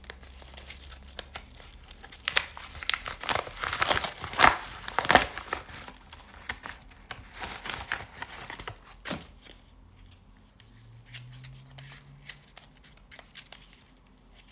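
Lip stain packaging being unwrapped and opened by hand: crinkling and tearing, busiest in the middle stretch, then lighter scattered clicks and rustles of handling.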